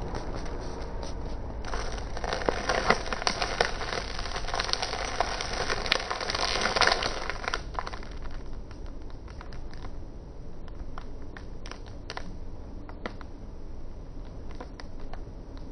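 Thin clear plastic bag crinkling as it is handled by hand: dense crackling from about two seconds in to about eight seconds, then only scattered, fainter crackles.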